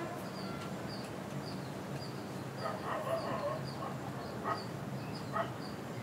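A dog barking, a cluster of barks about halfway through and single barks near the end, over a high chirp that repeats about twice a second.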